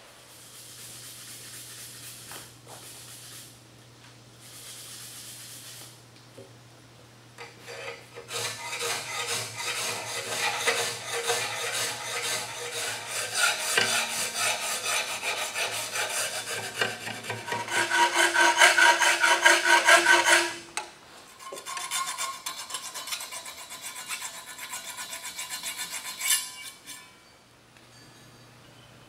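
A hand file rasps in quick repeated strokes along the edge of a forged mild-steel spatula blade clamped in a vise. The filing starts about eight seconds in and is loudest near the middle, where a ringing tone comes through. It stops briefly, then goes on more lightly until shortly before the end.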